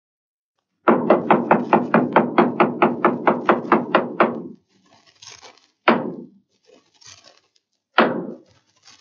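A staff struck on a wooden stage floor in the traditional French theatre signal: a fast, even roll of about sixteen knocks, then slow single knocks about two seconds apart, the 'trois coups' that announce the curtain is going up.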